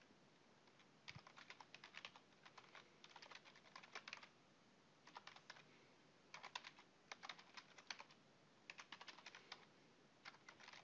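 Faint typing on a computer keyboard: short runs of quick keystrokes with brief pauses between them.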